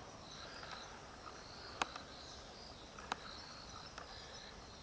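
Insects chirping faintly in broken high trills, with two sharp clicks about two and three seconds in.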